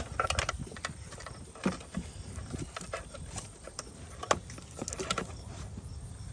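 Wind rumbling on the microphone, with scattered light clicks and knocks, the loudest right at the start and another just past four seconds in.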